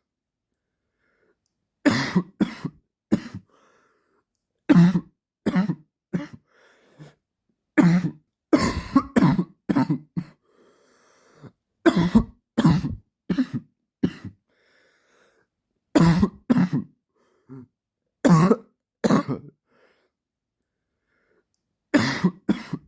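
A man's dry cough, coming in fits of two to five short, sharp coughs a few seconds apart, with silent gaps between the fits.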